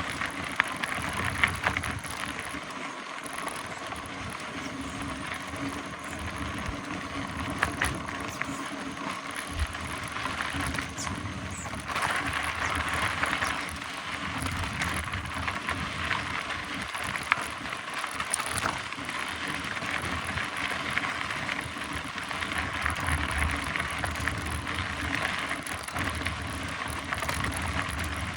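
Mountain bike being ridden on a trail: a steady rush of tyre and riding noise with scattered sharp knocks and rattles.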